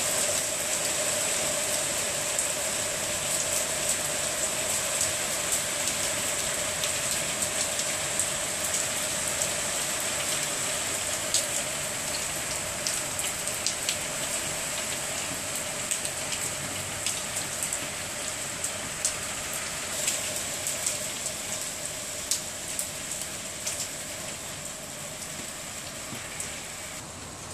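Heavy rain pouring down, a steady hiss with many sharp ticks of drops striking hard surfaces close by, easing slightly towards the end.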